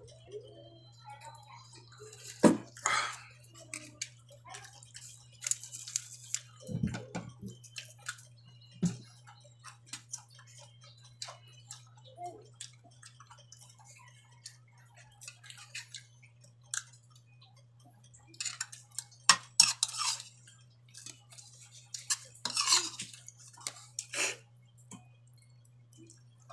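Spoon and fork clinking and scraping on a plate with some chewing, in scattered sharp clicks, a few of them loud, over a steady low hum.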